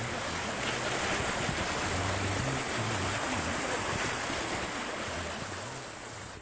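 Shallow stream rushing and splashing over a stony bed, a steady broad rush of water that drops away abruptly at the end.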